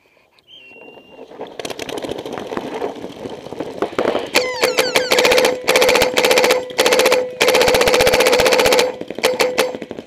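Planet Eclipse Etek3 LT electronic paintball marker firing rapid bursts, each burst carrying a steady tone from the gun's low-pressure regulator (LPR), a noise the owner finds really annoying and cannot yet trace. Paintball shots crack rapidly around the field for a few seconds before the bursts begin.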